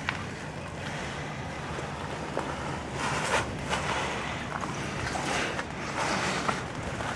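Wind rumbling on the microphone, with short bursts of rustling and crunching from dry twigs and brambles being pushed through underfoot about halfway through and again near the end.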